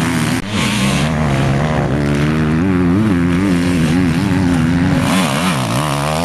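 Enduro dirt bike engines revving and easing off as riders power through turns, the pitch rising and falling with the throttle.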